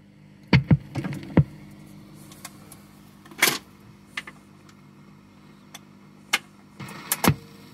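Autochanger mechanism of a 1960s Ultra model 6018 record player cycling to the next 7-inch single: a series of irregular mechanical clicks and clunks as the record drops onto the platter and the tonearm swings back onto it, over a faint steady hum.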